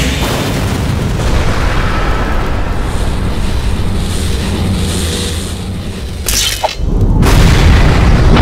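Loud explosion booms and heavy low rumbling, cinematic sound effects of an animated battle. The rumble thins out about six seconds in, then a loud low boom comes back about a second later.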